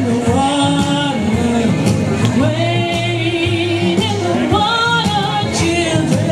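A woman singing into a microphone over instrumental accompaniment, holding long notes with vibrato.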